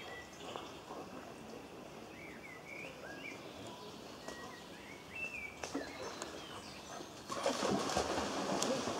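Birds chirping in the background, then, about seven seconds in, loud water splashing as a dog plunges through a shallow stream.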